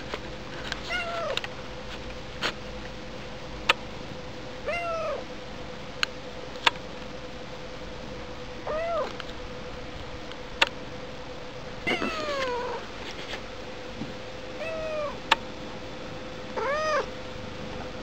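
Siamese cat meowing, about six short high calls spread through the stretch, each rising and then falling in pitch. Sharp clicks come here and there between the meows, over a faint steady hum.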